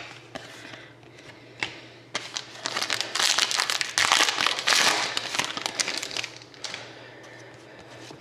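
Hockey card pack wrapper being crinkled and torn open by hand, a few handling clicks first, then about four seconds of loud crinkling and tearing.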